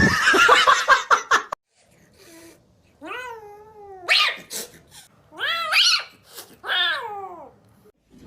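A cat yowling: a loud, harsh outburst in the first second and a half, then four long, drawn-out meows that bend in pitch, some falling away at the end.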